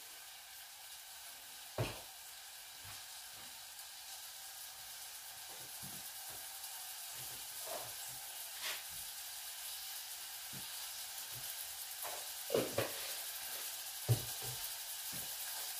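Oil or food sizzling in a pan on the gas hob, a steady hiss that grows slowly louder. A few short light knocks come through it, about five in all.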